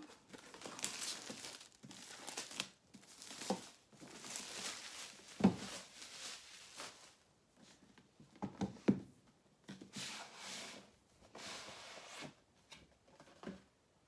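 Plastic film wrapping being torn and crinkled off a cardboard box in several stretches of rustling, with a few dull knocks as the box is handled about five and nine seconds in.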